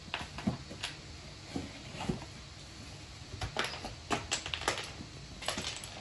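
Irregular light knocks, scrapes and rustles of cardboard as a cat moves about inside a large cardboard box.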